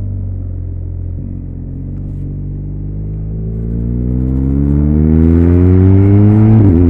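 BMW R1200RS's 1170 cc boxer twin engine pulling hard: its pitch climbs steadily for a few seconds and grows louder, then falls sharply near the end. Wind rush builds with the speed.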